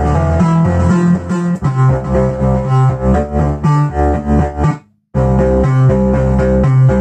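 Analog synthesizer music from a Behringer MS-1 and Pro-1, run through a Behringer Virtualizer Pro DSP2024P effects processor: a heavy bass line under a pattern of short repeated notes. The sound cuts out completely for a moment about five seconds in, then comes straight back.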